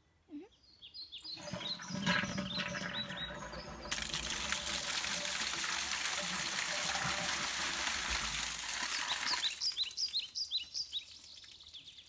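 Toilet flushing: water rushes down the PVC drain line and pours out of the pipe end into a dug pit, building from about a second and a half in, loudest from about four seconds, and dying away near ten seconds. Birds chirp throughout.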